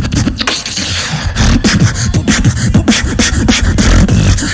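Beatbox drop through a microphone: after a short pause, a fast, dense pattern of sharp kick and snare hits comes in, with low bass sounds sliding up and down in pitch under them.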